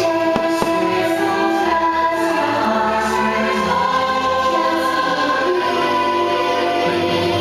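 Fireworks show soundtrack over park loudspeakers: orchestral music with a choir singing. Two faint pops about half a second in.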